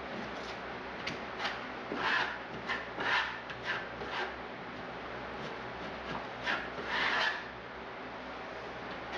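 Irregular scraping and rubbing strokes of a hand tool spreading RedGard liquid waterproofing membrane over fiberglass tape in the corners of a shower niche, a few strokes louder than the rest.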